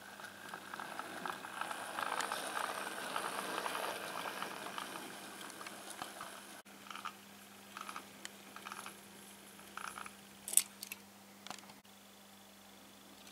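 OO gauge model GWR tank locomotive and its train running on the track, the wheels making a dense rattle of small clicks over the rail joints for about six seconds, then only scattered clicks with one sharp click near the end. A faint steady hum lies under it.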